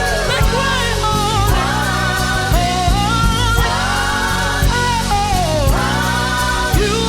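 Gospel-style worship song: a voice sings long, wavering held notes over sustained keyboard and bass chords, with occasional light drum hits.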